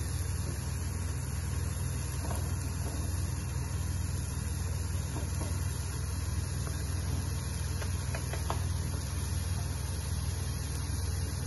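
Minced beef and diced onion sizzling steadily in a hot frying pan over a gas flame, under a constant low hum. A wooden spoon gives a few light knocks and scrapes as onion is scraped off a chopping board and the pan is stirred.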